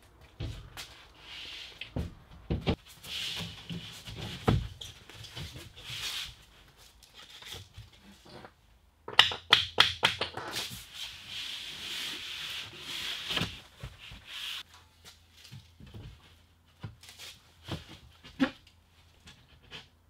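A large plywood wall panel being handled and fitted against a wall: its edges scrape and rub on the floor and wall, with scattered knocks and thuds. The loudest run of knocks comes about nine to eleven seconds in.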